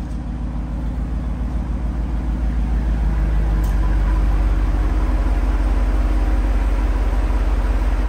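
Jeep driving, a steady low engine and road rumble that swells over the first few seconds, then holds.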